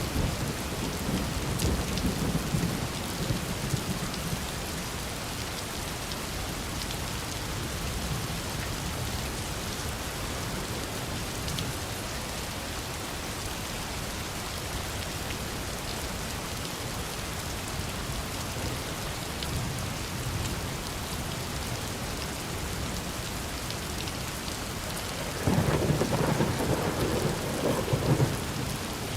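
Steady heavy rain falling, with rolls of thunder rumbling low in the first few seconds and again, louder, near the end.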